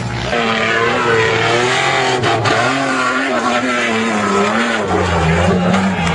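SUV engine revving hard under full throttle as it speeds over sand and charges up a steep dune, its pitch rising and falling with the throttle.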